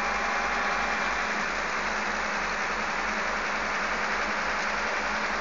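Engines of heavy work machinery running steadily, an even drone with no sudden knocks or changes.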